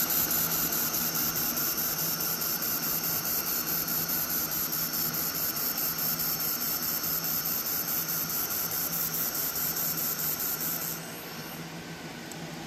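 Handheld air-cooled fiber laser welder running a wire-fed weld along an outside corner of 18-gauge stainless steel: a steady high hiss with a fast, even flutter, stopping about eleven seconds in.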